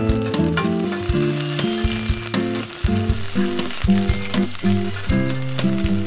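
Sliced onions and green chillies sizzling as they fry in hot oil in a kadai, with a steel spatula scraping and tossing them in short clicks, over background music.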